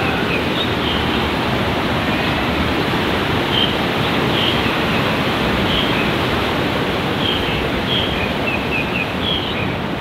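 Steady rush of a shallow river running over rocks and small rapids, with a few short, faint high chirps scattered through it.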